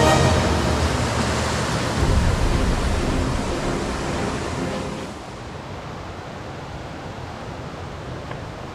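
Background music fading out over the first five seconds, leaving a steady rushing noise.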